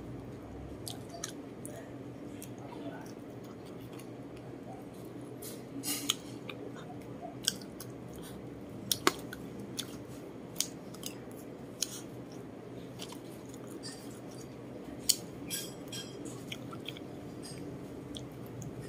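Close-up chewing and lip smacking of a person eating rice and chicken, with many short wet clicks over a steady low hum. There is a sharp metal clink about nine seconds in, a spoon against the plate.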